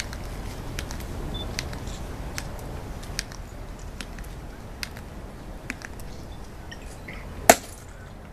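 Tomb of the Unknown Soldier sentinel's metal-tapped dress shoes clicking on stone in a slow, steady march, about one sharp click every 0.8 seconds, over a low outdoor rumble. One much louder, sharp click comes near the end.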